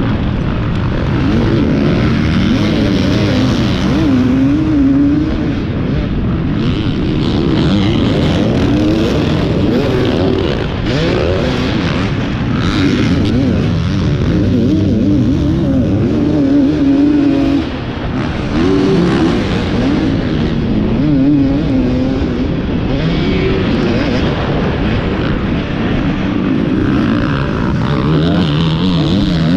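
450-class motocross bike's engine running hard at race pace, heard onboard from the rider's camera, its revs rising and falling steadily with throttle and gear changes, with a brief drop in the engine note a little past halfway.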